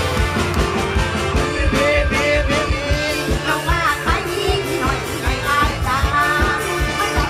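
Isan mor lam band playing live with a steady drum beat, and a woman singing the melody over it through a microphone.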